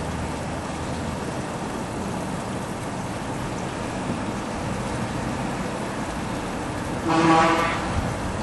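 Steady outdoor town background of distant traffic, with one short vehicle-horn toot lasting under a second about seven seconds in, the loudest sound.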